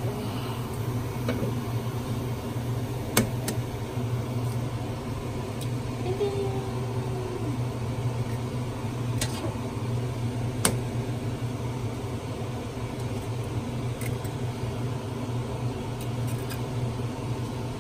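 Eggs cracked against the rim of a pot, with sharp knocks about three seconds in and again near eleven seconds. Under them runs a steady low kitchen hum.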